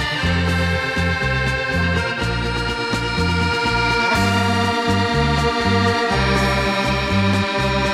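Instrumental background music: held chords over a bass line that steps from note to note.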